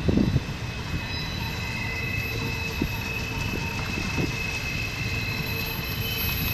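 Double-stack intermodal freight cars rolling past on a tight curve, wheel flanges squealing in steady high tones over a low rumble of wheels on rail. A heavy thump comes right at the start.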